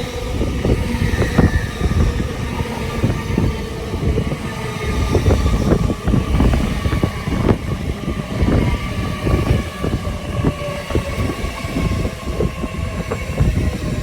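LNER Class 801 Azuma electric train running alongside the platform: a continuous heavy rumble with many short wheel knocks and a faint whine that falls slightly in pitch.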